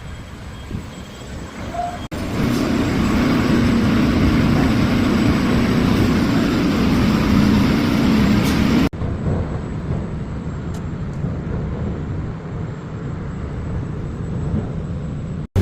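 Steady engine rumble and vehicle noise in three cut-together clips; the middle one, from about two to nine seconds in, is the loudest, with a low drone.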